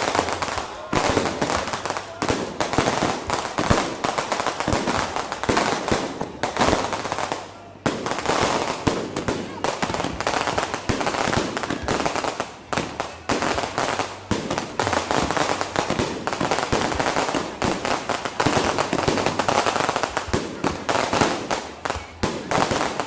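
Fireworks going off in a dense, nearly unbroken barrage of bangs and crackles, many shells bursting together with a short lull about seven seconds in: a display firing out of control, everything going off at once.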